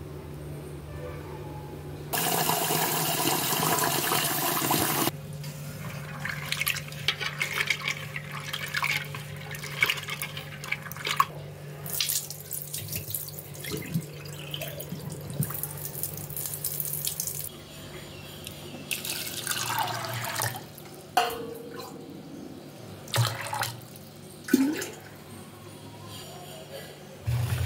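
Water pouring into an aluminium pot of split chana dal for about three seconds, then irregular splashing and sloshing as the dal is swished in the water and rinsed, with scattered splashes near the end.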